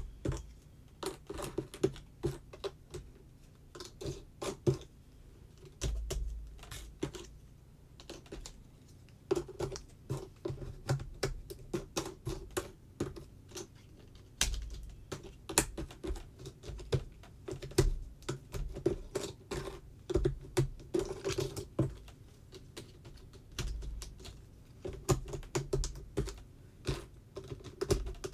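Cardboard jigsaw puzzle pieces being picked up, sorted and pressed into place on a puzzle board: a run of light, irregular clicks and taps.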